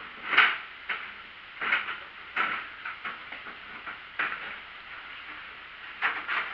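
Wire cage trap rattling and clinking as it is handled, in irregular short metallic clatters, the loudest about half a second in and two more close together near the end.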